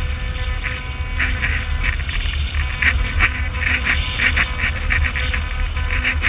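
RC flying wing's motor and propeller heard through its onboard camera: a steady whine with irregular buzzy pulses about twice a second, over a low wind rumble.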